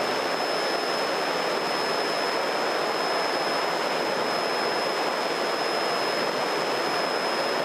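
Steady engine, propeller and wind noise inside the cabin of a small single-engine propeller airplane climbing under power, an even rush with a thin high whine over it.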